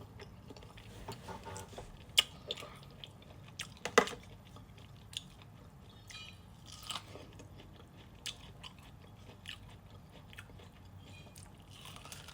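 A person chewing and eating food close to the microphone, with scattered small mouth and utensil clicks and two sharper clicks about two and four seconds in.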